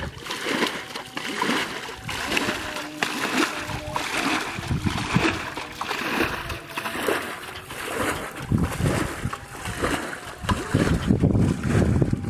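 Muddy water splashing and sloshing in irregular bursts as a pot scoops through the shallow water of a flooded rice field. From about two-thirds of the way in, wind rumbles on the microphone over the splashing.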